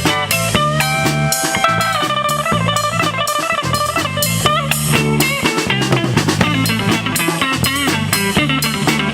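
Blues-rock band playing an instrumental break: a lead guitar with long held notes that bend in pitch, then quicker runs, over bass guitar and a drum kit.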